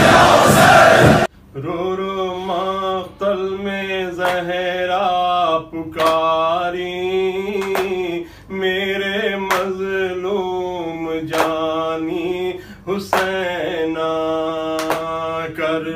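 A loud rushing noise cuts off sharply about a second in. Then a man sings a slow, wavering Urdu lament (noha) in long drawn-out phrases.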